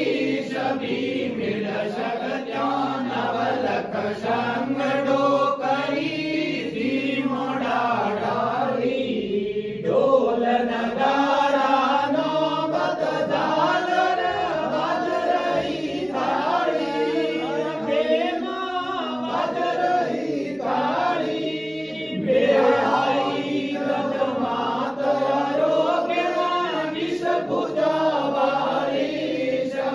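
Several men singing a Hindu devotional aarti hymn together in a steady group chant.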